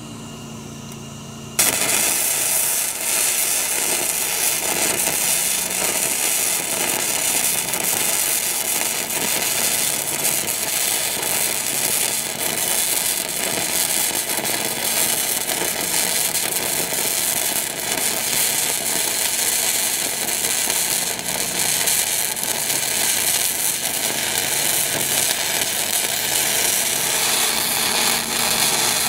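MIG welder arc crackling and sputtering steadily as a steel repair plate is welded into a skid-steer's track frame; the arc strikes about a second and a half in.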